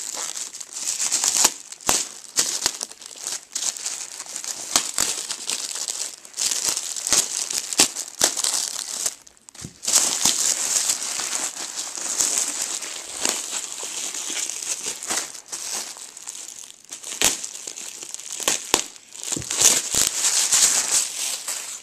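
Packaging crinkling and rustling as it is handled and unwrapped by hand, with sharp crackles throughout. There are short lulls about nine and a half and sixteen and a half seconds in.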